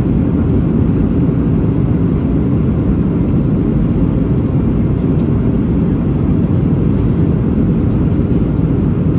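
Steady cabin noise inside a Boeing 737-800 descending on approach: its CFM56-7B turbofan engines and the air rushing past the fuselage make a deep, even rumble, heard from a window seat over the wing.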